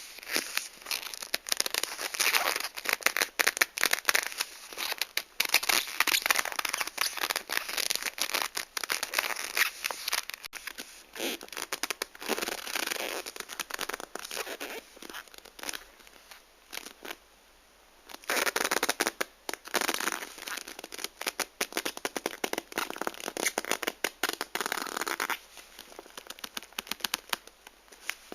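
Black leather glove rubbing and squeaking over shiny material, a dense run of crackly, scratchy friction. It stops for about a second roughly two thirds of the way through, then carries on and goes softer for the last few seconds.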